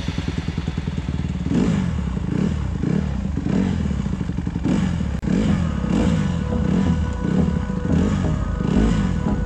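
Honda CRF150 dirt bike's single-cylinder four-stroke engine being ridden, its pitch rising and falling every second or so as the throttle is worked on and off. There is a short dip in the sound a little past halfway.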